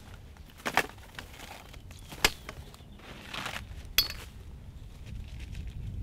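Gear knocking as it is tossed out of a fabric ground blind onto a pile: three sharp knocks about a second and a half apart, with a brief rustle between the last two. Low wind rumble on the microphone underneath, growing near the end.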